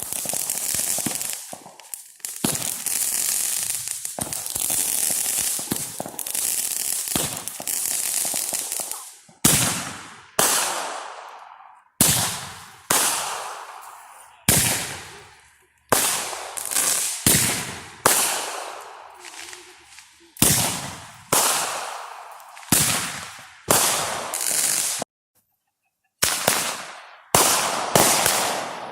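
Fireworks going off: first a dense, continuous crackling barrage for about nine seconds, then a string of separate sharp bangs, roughly one a second, each trailing off as it fades.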